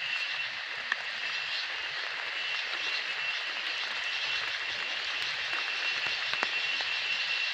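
Steady rushing of a waterfall, with a thin high whine held throughout and a couple of faint clicks.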